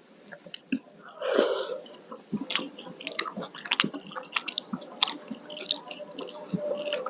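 Close-miked chewing of a mouthful of food, with many short, sharp mouth clicks and smacks and a louder breathy sound about a second in.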